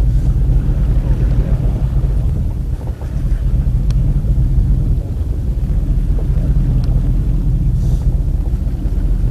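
Fishing boat's engine running with a steady low rumble, with wind noise on the microphone.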